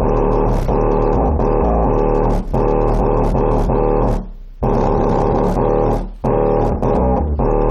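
Loud music with heavy bass playing through a JL Audio 10W7 subwoofer. The sound drops out briefly about four seconds in and again about six seconds in.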